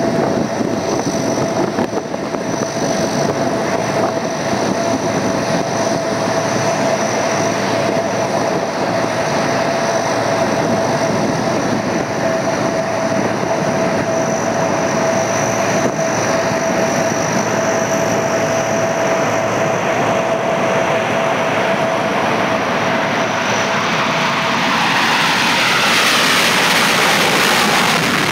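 Jet engine noise from F/A-18 Hornets on a formation takeoff run: a steady loud roar with a high whine. About 25 seconds in it swells into a brighter hiss with sweeping pitch as the jets come down the runway toward the listener.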